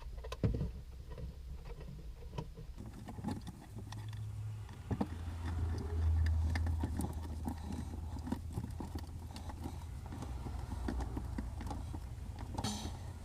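Irregular small clicks and scrapes of a screwdriver tightening a battery wire into a solar charge controller's screw terminal, over a low rumble.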